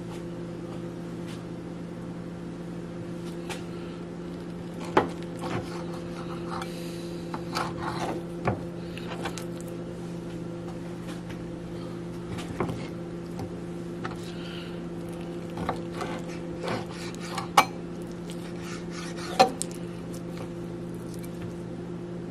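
Kitchen knife cutting and trimming raw chicken on a plastic cutting board: scattered short knocks and scrapes of the blade on the board, over a steady low hum.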